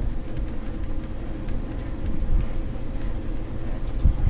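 Steady low rumble with a faint hum, under a light crackle of sizzling from pumpkin and butternut squash halves baked in a hot oven.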